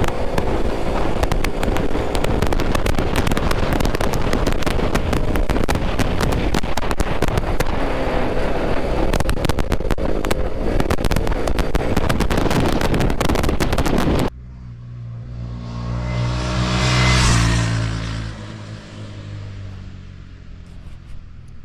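Heavy wind buffeting and crackle on the microphone of a moving motorcycle, with engine noise buried underneath. It cuts off abruptly about two-thirds of the way through. A motor vehicle then passes by, its engine growing louder to a peak a few seconds later and fading away.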